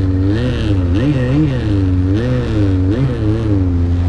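Snowmobile engine running and being revved up and down repeatedly, its pitch rising and falling every half second or so over a steadier low engine note.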